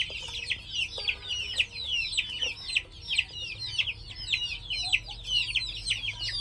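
A flock of two- to four-week-old game-fowl chicks peeping all at once: a steady, overlapping chorus of short, high cheeps that fall in pitch.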